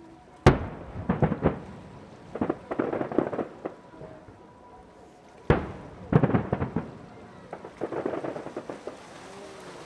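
Aerial fireworks: two loud bangs about five seconds apart, each followed by clusters of dense crackling as the shells burst into crackle effects.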